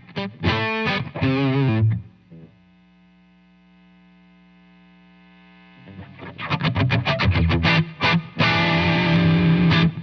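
Electric guitar played through a Joyo R-02 Taichi overdrive pedal, a Zendrive clone voiced for a smooth Dumble-style tone. It opens with a few singing lead notes with vibrato. After that a single low note is held quietly for about three seconds, and about six seconds in a quick run of picked notes breaks into loud overdriven chords.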